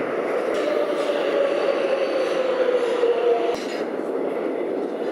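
New York subway train running, with a whine that slowly falls in pitch over the rumble and cuts off about three and a half seconds in.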